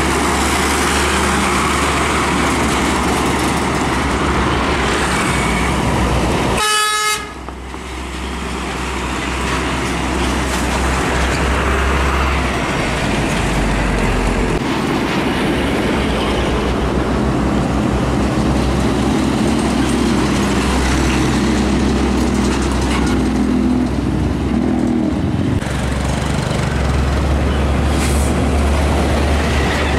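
Heavy diesel trucks driving past close by, with a steady low engine rumble and tyre and traffic noise. There is a brief break in the sound about seven seconds in.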